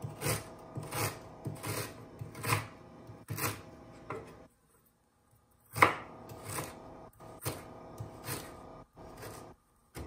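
Kitchen knife slicing peeled fresh ginger root on a wooden cutting board, each cut ending in a knock of the blade on the board, a little more than one cut a second, with a short pause about halfway through.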